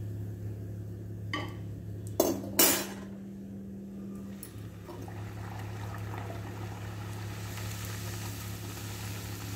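A metal utensil clinks sharply twice against a kadhai, then hot oil sizzles as a puri deep-fries, the sizzle growing stronger near the end. A steady low hum runs underneath.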